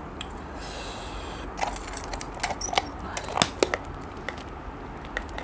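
Plastic yogurt-cup packaging being handled: a brief crinkling rustle about half a second in, then a run of sharp clicks and taps, thinning out towards the end.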